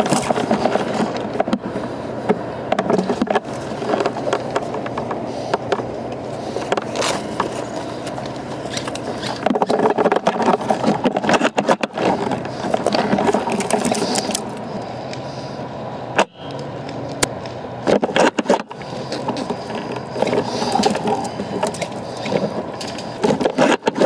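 Rustling and handling noise on a rifle-mounted camera, with many scattered sharp clicks and knocks.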